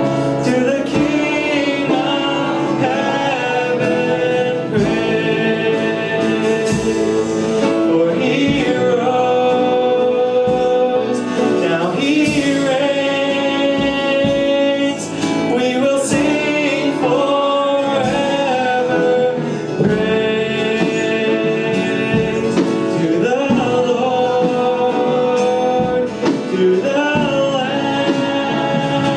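Worship music: a band playing with voices singing a gospel-style praise song.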